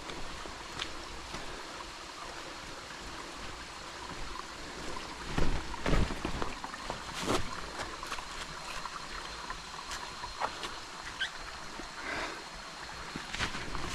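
Jungle creek running and trickling steadily, with a faint steady high tone over it. Three louder thumps come in the middle of the stretch.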